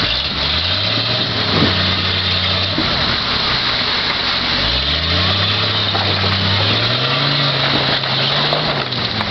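Jeep Cherokee XJ's AMC 258 straight-six engine revving under load as it crawls over creek boulders: it climbs about half a second in, holds, eases off near three seconds, then climbs again in two steps from about five seconds and eases near the end. A steady rush of creek water runs underneath.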